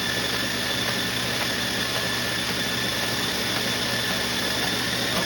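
Electric treadmill running steadily at speed: a constant motor whine with a belt hum underneath.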